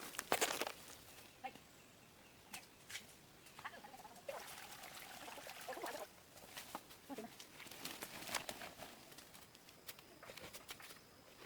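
A few short animal calls among scattered taps and knocks.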